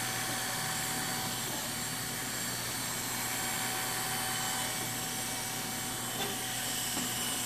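Corded electric hair clippers running with a steady hum, cutting hair with the clipper-over-comb technique.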